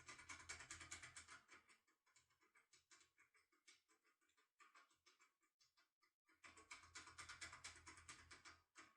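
Foil impressioning lockpick being worked inside a pin-tumbler cylinder lock, making faint, rapid fine scratching and clicking as the foil is pressed against the pins. The sound comes in two stretches of a couple of seconds each, one at the start and one near the end, with sparse ticks between.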